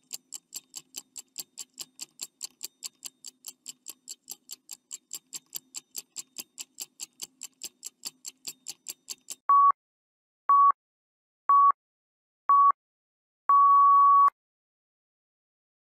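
Countdown timer sound effect: a clock ticking quickly, about five ticks a second, then about nine seconds in four short electronic beeps a second apart and a longer final beep signalling that time is up. The beeps are the loudest part.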